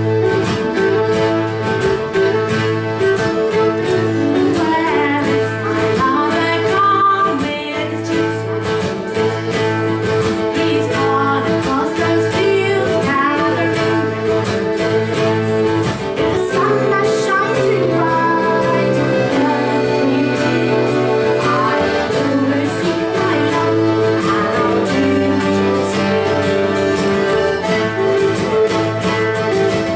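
Live acoustic folk band playing: acoustic guitar, fiddle and melodeons, steady held chords under a winding melody line.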